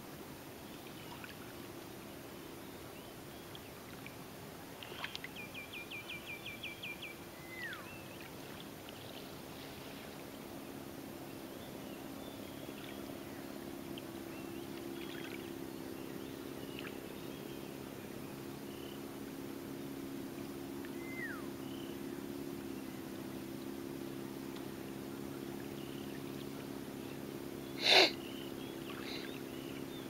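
Birds singing: a rapid run of about ten high notes around five to seven seconds in, then short falling whistles, over a low steady hum. Near the end a single loud sniffle from the person filming stands out as the loudest sound.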